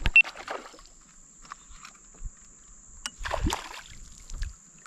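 Water sloshing against a kayak, with a few short splashes and knocks, the largest about three seconds in.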